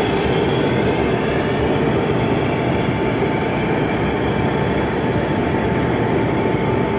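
0 gauge model train running along the layout's track, a steady rumble over the hall's background hum, with no distinct clicks or stops.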